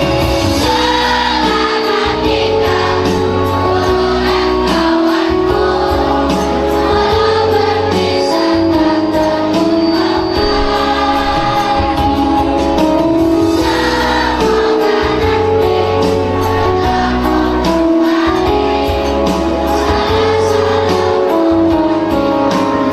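Children's choir singing a song in unison over instrumental backing music with a steady bass line.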